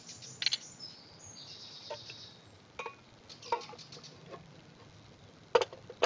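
Metal camping cookware clinking: a small kettle and a metal cup tapped and knocked together in scattered clinks, with the two sharpest clinks near the end.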